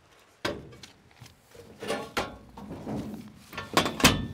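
Metal cabinet clunking and scraping against a hand truck as it is rocked onto the nose plate and tipped back: a string of separate knocks and rattles, the loudest near the end.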